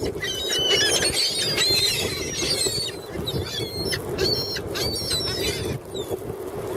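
A flock of seagulls calling and squealing over one another, many short high cries in quick succession, as they crowd in for thrown crackers.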